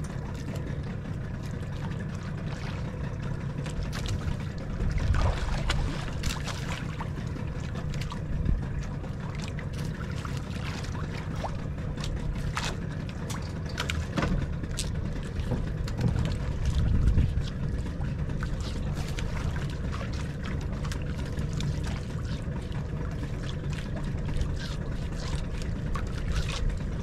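Water sloshing and trickling against a small fishing boat's hull over a steady low rumble, with scattered light clicks and a few louder low thumps.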